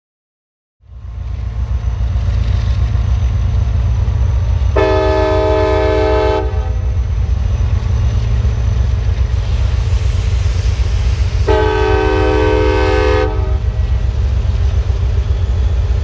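Freight train rumbling past, starting about a second in, with the locomotive's air horn sounding two long blasts of under two seconds each, about seven seconds apart.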